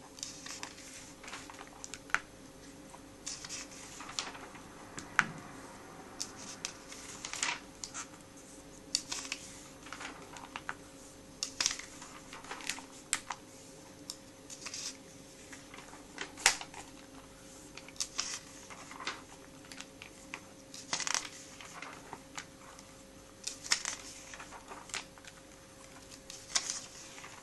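Glossy comic-book pages being turned and pressed flat by hand: irregular papery rustles and crackles, over a steady faint hum.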